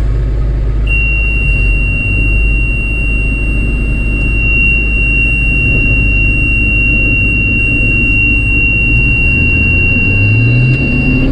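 Combine engine running steadily, then speeding up in the last couple of seconds as it is throttled up. A steady high-pitched warning tone sounds from about a second in until near the end.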